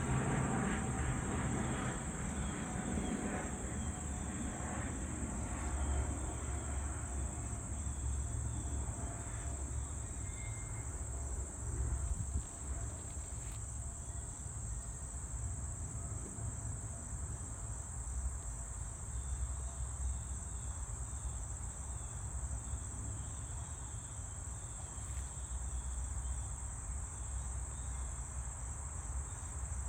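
Insects, crickets by the sound, trilling in a steady high-pitched pulsing chorus, with a low rumble underneath. A broader rumble fades out over the first few seconds.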